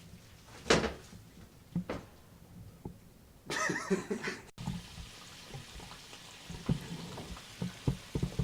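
Kitchen clatter of pans and utensils knocking, the sharpest knock about a second in, with a short burst of mixed noise just before halfway. After an abrupt cut, a steady hiss of chicken frying in hot oil runs on under more light knocks.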